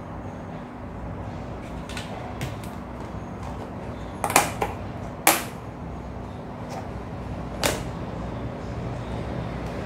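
A thin plastic food tub of set gelatin being handled on a hard countertop: a few light plastic clicks, then two loud knocks about a second apart in the middle as the tub is turned over, and one more knock near the end.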